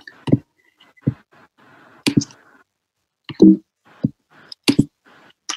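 A handful of short, sharp clicks and soft thuds at a computer microphone, irregularly spaced with quiet between: mouse clicks and small desk noises.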